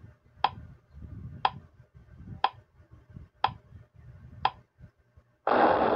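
Countdown timer sound effect: five sharp clock ticks, one a second, then a louder noisy burst starting about half a second before the end as the countdown runs out.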